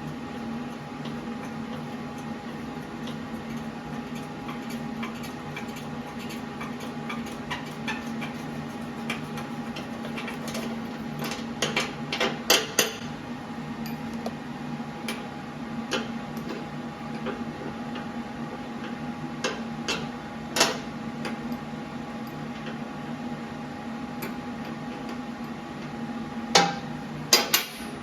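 Scattered sharp metallic clinks and taps, like tools and metal parts being handled, with louder clusters about halfway through and near the end, over a steady low hum.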